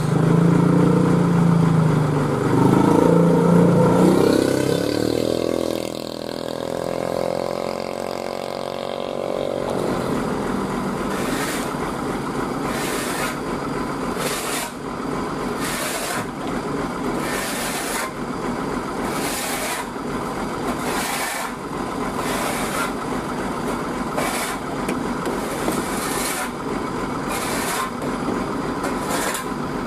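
Heavy diesel truck machinery running loudly, its pitch sweeping and then settling within the first ten seconds, followed by a steady running noise with a series of short rasping strokes about once a second.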